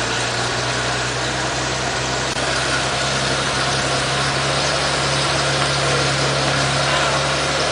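Vintage fire engine's engine running steadily, a constant low hum.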